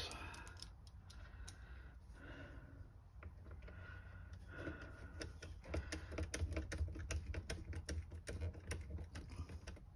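Hand screwdriver driving small self-tapping screws through a circuit board into a plastic instrument-cluster housing: a run of quick, light clicks and ticks, sparse at first and much denser in the second half.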